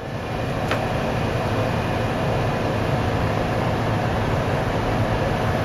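Steady low hum and hiss of background machinery noise, with a faint click under a second in.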